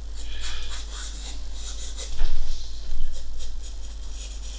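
Graphite pencil scratching on drawing paper in short repeated strokes while sketching outlines, with two louder strokes about two and three seconds in.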